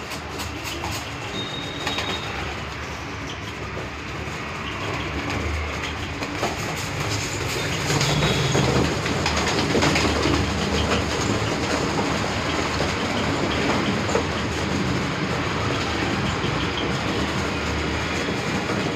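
A crowded pen of domestic pigeons stirring: many wings flapping and clattering. The flapping gets louder about eight seconds in.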